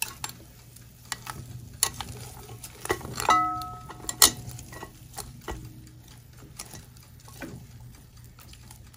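Metal tongs clicking and scraping against the wire rack and glass bowl of a countertop oven as hot pork ribs are turned over, with a brief ring a little past three seconds in and a sharp clack just after four. The ribs sizzle under it, over a steady low hum.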